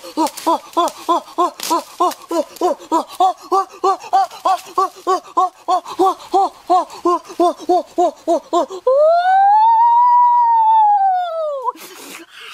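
A man's high voice giving rapid, repeated laughing cries, about four a second, then near the end one long wailing cry that rises and falls in pitch.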